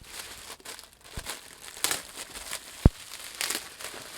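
Packaging crinkling and rustling as it is unwrapped by hand, with one sharp knock a little under three seconds in.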